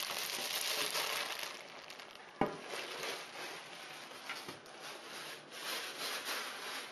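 Clear plastic packaging being handled, rubbing and rustling unevenly, with one sharp knock about two and a half seconds in.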